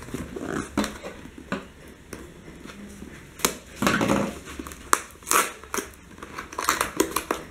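Clear tape seal being picked at and peeled off a cardboard box flap, with irregular crackles, clicks and short scrapes of cardboard handled by hand.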